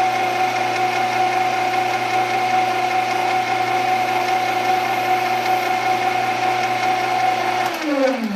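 Grizzly G0602 metal lathe running in forward with a steady whine from its motor and gear drive; near the end it is switched off and the whine falls in pitch as the spindle spins down.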